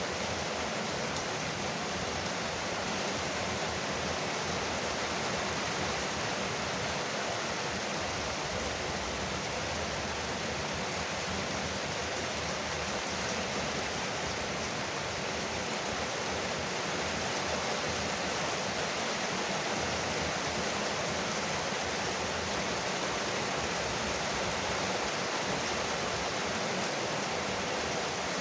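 Rain falling steadily on a veranda roof, a dense, even hiss with no breaks.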